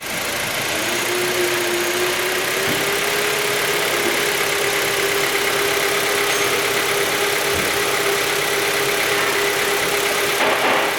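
Car engine idling with a steady tone and a faint, even ticking knock. It is a knock that replacing the engine's mechanical parts did not cure.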